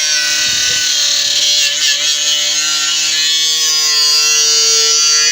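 Homemade angle grinder built from a blender motor, its disc running with a steady whine as it cuts into a piece of wood with a harsh rasping.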